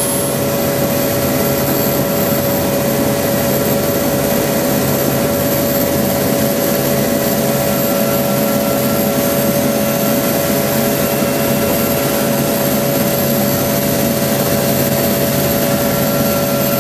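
RAF search-and-rescue helicopter's turbine engines and rotors running steadily, heard from inside the cockpit: a steady whine over a dense rumble.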